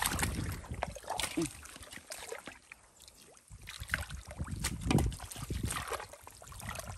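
Hands groping and sloshing through shallow muddy water and soft mud, with irregular splashes and squelches while feeling for fish; it goes quiet for about a second near the middle.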